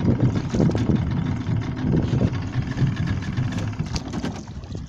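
Boat's outboard motor idling steadily, a low even hum with small knocks and clicks over it.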